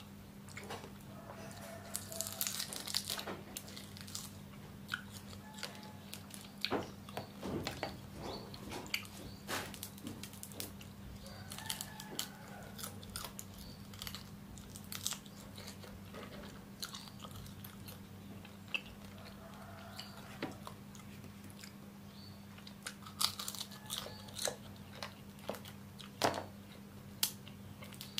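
Close-up crunching and chewing of chilli-cooked rhino beetles, with irregular sharp cracks as the hard beetle shells break. Some stretches are denser, about two seconds in, around seven to ten seconds, and again near the end. A steady low hum runs underneath.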